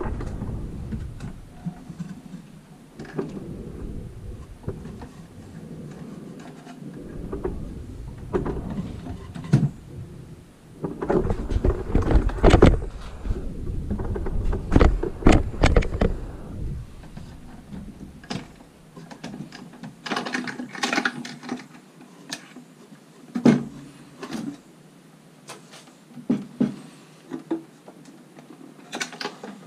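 A wooden pine treasure chest being handled on a workbench: irregular knocks, scrapes and low handling rumble, with sharper separate clicks in the second half as its hinged lid is opened.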